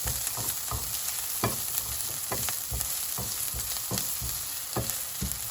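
Chopped vegetables sizzling in hot oil while being stir-fried on high heat, with a spatula knocking and scraping against the pan about a dozen times at uneven intervals.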